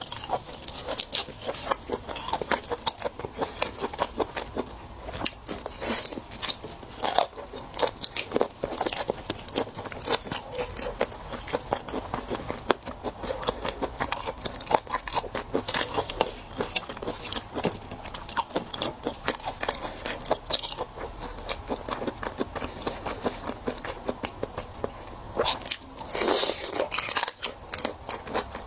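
Close-miked eating of raw shellfish (prawn, then marinated raw crab in its shell): wet chewing, biting and sucking, with a steady stream of clicks and shell crunches. The sounds get louder for a moment near the end.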